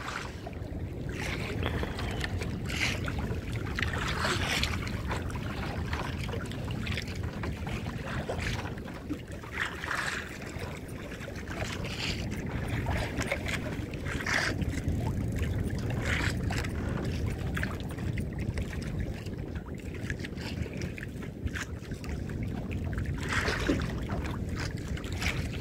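Steady low wind and sea noise around a small fishing boat, with short washes of water noise every second or two.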